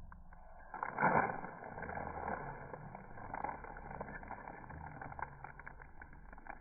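Slowed-down sound of a German Shepherd biting and chewing, a low crackling and crunching noise with many small clicks that starts loudly about a second in.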